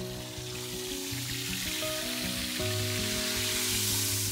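Pork roasts sizzling in a stone oven, a steady hiss of fat frying, under background music of slow held chords.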